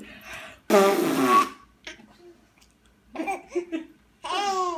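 Five-month-old baby laughing in short fits, with a loud burst about a second in and the strongest laughs near the end.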